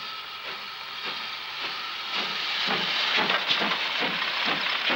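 Great Western Railway steam locomotive hissing steam. From about halfway in, exhaust beats at about three a second grow louder as it works steam up the chimney.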